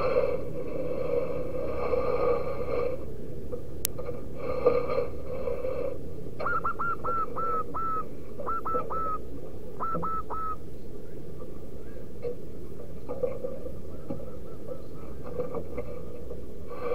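Zebra dove calling: three quick runs of short, clipped notes of the same pitch, each dropping at its end, starting about six seconds in. A steady hum comes and goes underneath, and a single sharp click sounds about four seconds in.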